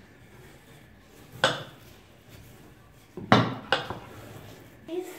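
Kitchen knife blades knocking on wooden cutting boards as mushrooms and olives are sliced. There is one sharp knock about a second and a half in, then a louder cluster of three knocks a little after three seconds.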